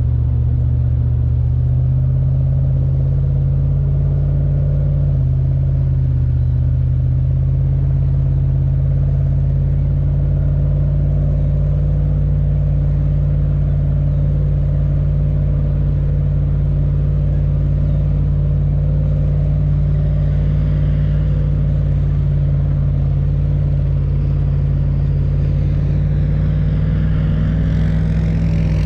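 Engine of a 4x4 recovery vehicle running steadily under load as it tows a car through soft sand on a recovery strap, a low steady drone whose note changes near the end.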